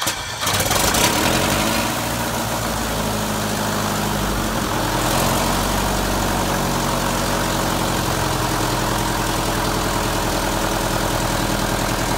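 Air-cooled Lycoming IO-390 four-cylinder engine of an RV-14A starting up within the first second, with a brief surge, then running steadily at idle with the propeller turning, on the plane's first engine run.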